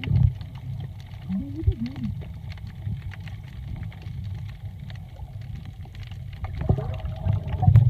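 Underwater ambience while snorkeling: a steady low rumble of moving water under a continuous crackle of small clicks, with a few louder low thumps near the end.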